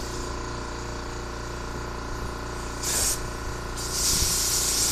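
Compressed-air blow gun hissing in two blasts, a short one about three seconds in and a longer one starting near the end, blowing through the holes of a carburetor float bowl. A steady low hum runs underneath.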